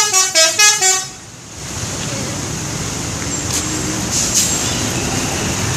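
Bus telolet horn playing a quick tune of stepping notes, cutting off about a second in; then steady road noise.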